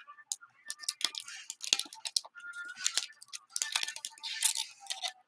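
Foil 2021 Panini Prizm NBA blaster packs crinkling and rustling in gloved hands as they are opened and the cards handled, in a run of irregular sharp crackles.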